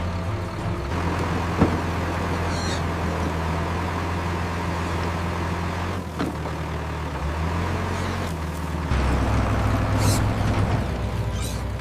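Heavy vehicle engine running steadily, a rumbling bulldozer-type engine sound effect, growing a little louder about nine seconds in. There is a sharp click early on, and brief high hisses come about two and a half seconds in and again near the end.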